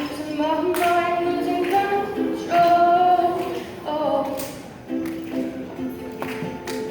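A singer performing a song live over instrumental accompaniment, with sung phrases for the first few seconds, then steady held accompaniment notes with little voice from about five seconds in.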